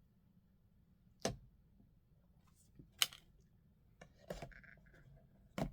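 Small items being handled and set down on a table: a few sharp taps or clicks about a second in, around three seconds in and near the end, with a brief rustle of packaging in between.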